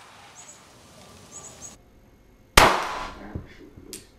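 A single gunshot about two and a half seconds in, with a short fading tail, followed about a second later by a faint sharp click.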